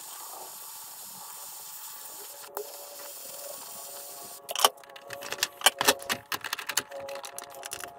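Faint steady hiss, then from about halfway a run of sharp metallic clicks and clinks: a hex key and spanner working the bolt that holds a robot mower's wheel on its hub, to take the screw out.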